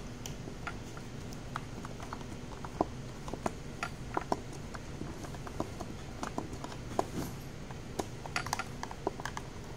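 Small, irregular clicks and ticks of a screwdriver driving a screw into the grip of a plastic carbine conversion kit for a Glock pistol, over a steady low background hum.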